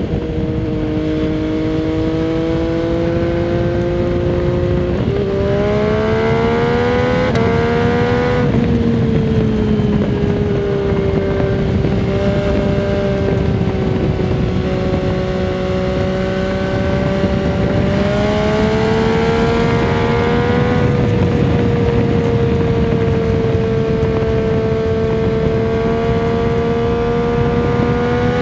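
MV Agusta Dragster 800 RR's three-cylinder engine through a Fresco Trio Corse exhaust with its dB-killer in, heard from the rider's seat at road speed. The engine note climbs and steps about five to nine seconds in as the bike pulls through the gears, then holds a steady cruise, picks up again around the twenty-second mark and settles. Wind noise on the microphone runs under it all.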